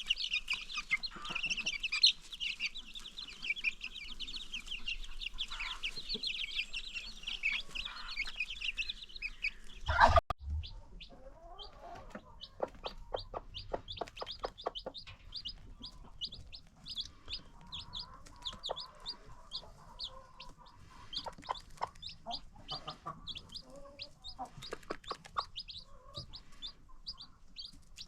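Baby chicks peeping, many at once and continuously, then a loud thump about ten seconds in. After it the chicks peep more sparsely while a hen clucks in short repeated strokes.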